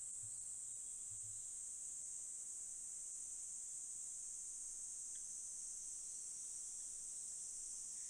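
Cicadas droning in a steady, high-pitched, unbroken chorus.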